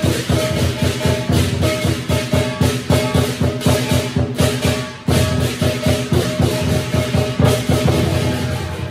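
Lion dance percussion: a large drum beating rapid strokes with clashing cymbals over a ringing gong tone, with a brief break about five seconds in.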